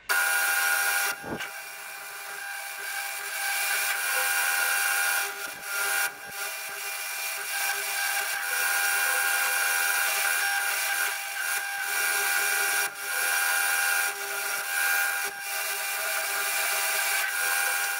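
Metal lathe cutting a recess into the face of a metal disc: a steady hiss of the cut with a constant whine from the spinning machine, easing off briefly a few times.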